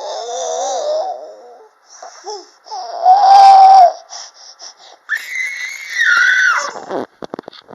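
A baby of about ten months vocalizing: wavering babbling, a loud shout about three seconds in, then a long high-pitched squeal that drops away near the end.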